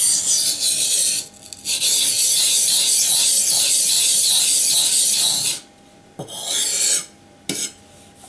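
Steel knife blade being stroked over a wet, coarse 220-grit green silicon-carbide waterstone, a gritty rasping scrape in long strokes while the edge is reprofiled. It breaks off briefly a little over a second in and stops just before six seconds. A shorter stroke and a light click follow.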